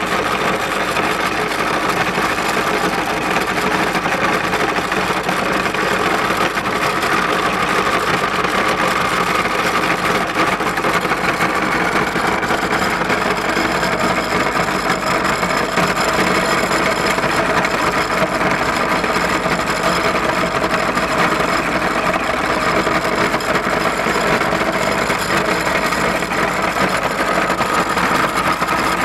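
Belt-driven cast-iron meat grinder running steadily while its auger grinds bread into crumbs through the perforated plate: a continuous machine hum with several steady tones.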